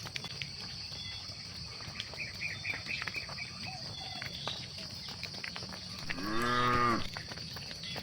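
A cow moos once, a single call of under a second, near the end. Underneath runs a steady high drone of insects.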